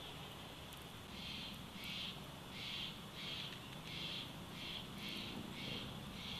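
A rhythmic series of high chirps, about one and a half a second, starting about a second in, over a faint steady background.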